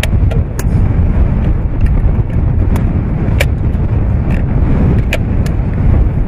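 Sharp metallic clicks, a dozen or so spread irregularly, of .50 BMG cartridges being pressed into a Barrett M82/M107 box magazine. Behind them runs a loud, low, gusty rumble of wind on the microphone.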